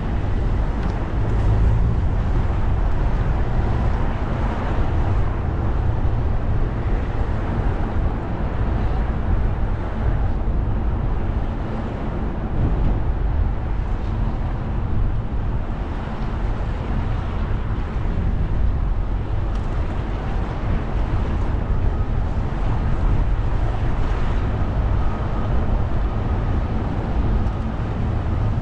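Car driving on wet city roads: a steady low rumble of engine and tyres with road hiss, unchanging in level throughout.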